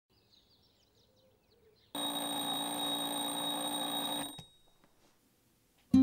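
A bell rings steadily for about two seconds, then stops with a click. Faint chirping comes before it.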